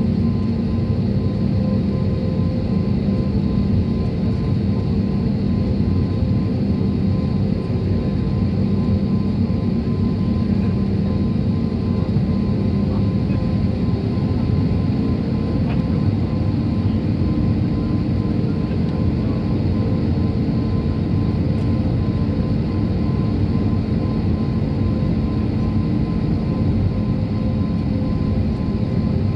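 Airliner cabin noise: the jet engines and airflow give a steady, unchanging drone with a few held tones.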